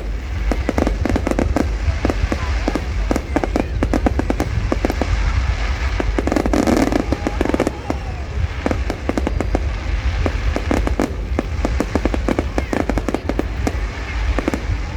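Fireworks display: a dense, unbroken run of sharp bangs and crackles from the shells bursting.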